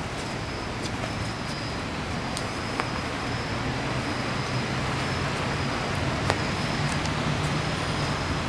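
Road traffic noise: a steady low rumble of passing vehicles that grows slightly louder toward the end, with a faint steady high whine over it.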